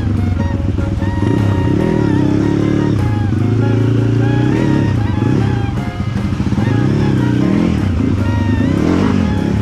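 Off-road dirt bike engine revving up and down over and over, the revs rising and falling every second or so, with background music over it.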